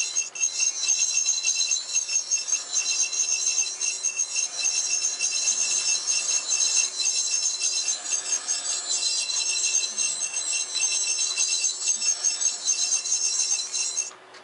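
Science tricorder prop's GMProps electronics board playing its electronic scanning sound effect through a small speaker: a rapid, high-pitched pulsing warble of several steady tones. It cuts out automatically just before the end.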